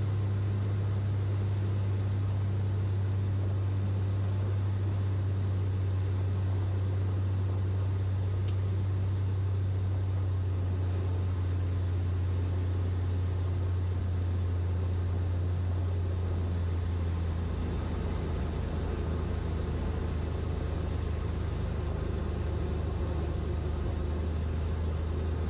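Steady drone of a 1957 Cessna 182 Skylane's six-cylinder Continental O-470 engine and propeller, heard from inside the cockpit at reduced power on final approach. The low hum shifts slightly about two-thirds of the way through.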